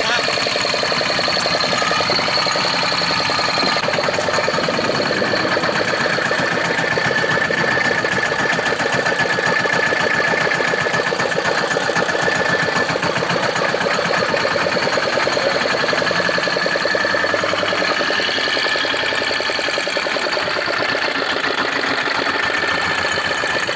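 Fishing boat's engine running steadily, a fast even chugging with a steady high whine over it.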